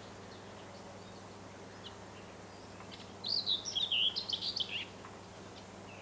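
A small songbird sings one quick, jumbled warble of many short high notes, lasting about a second and a half and starting about three seconds in. Fainter chirps from other birds and a low steady hum lie underneath.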